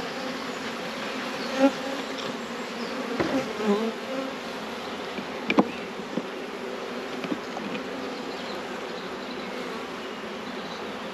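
Honeybees buzzing steadily over an open hive, with single bees now and then passing close by, their hum rising and falling in pitch. A few sharp knocks and clicks break in, the loudest about five and a half seconds in.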